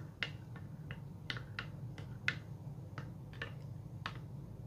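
White plastic spoon stirring a juice, honey and aloe vera gel mixture in a glass bowl, clicking against the glass at an irregular pace, about two or three times a second.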